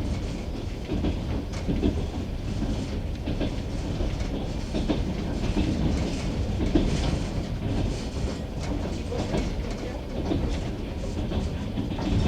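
Passenger train carriage running, heard from on board: a continuous rumble with wheels clattering irregularly over rail joints.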